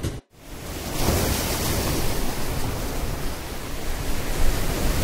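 Steady rushing noise like surf or wind, fading in just after a brief cut to silence near the start.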